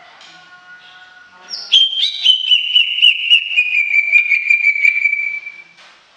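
Green leafbird (cucak ijo) singing: a loud whistled phrase of quick repeated notes begins a little under two seconds in, slides slowly down in pitch, and stops near the end. Fainter high notes come before it.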